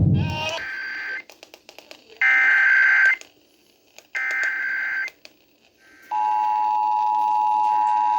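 Emergency Alert System test over the radio: three short bursts of the buzzy digital SAME header tones, about a second each with a pause between, then about six seconds in the steady two-tone EAS attention signal starts.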